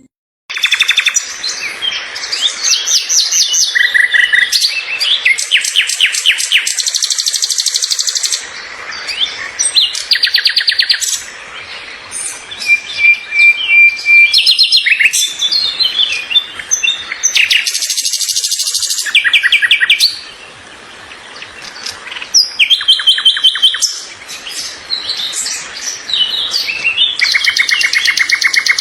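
Small birds chirping and singing almost without pause. The song is made of fast trills of rapidly repeated notes and short high chirps, with a quieter spell about two-thirds of the way through.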